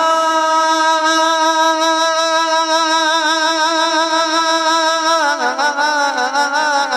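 A man singing a naat, holding one long drawn-out note with a slight vibrato, then dropping in pitch about five seconds in into a wavering melismatic run.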